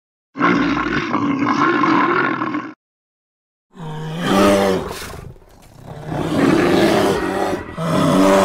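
Animal roar sound effects: one roar of about two seconds, then after a moment of dead silence a longer roar that swells twice, each cutting in and out abruptly.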